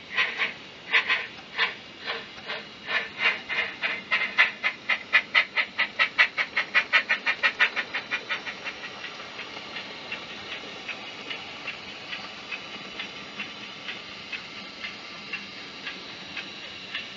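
Bachmann Double Fairlie model steam locomotive's DCC sound decoder playing steam exhaust chuffs through the model's speaker. The beats quicken from about two a second to about five a second as the locomotive gathers speed, then go on about halfway through as softer, lighter beats.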